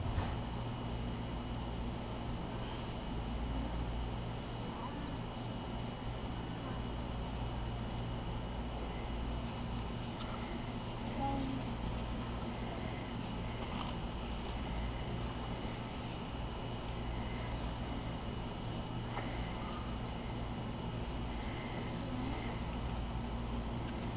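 Insects trilling steadily in a high, continuous pulsing chorus over a faint low hum.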